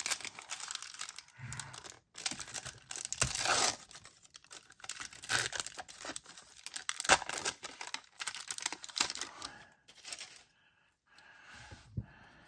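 1991 Upper Deck football trading cards being slid off a stack and flipped through by hand: a run of papery rustles and flicks, pausing briefly near the end.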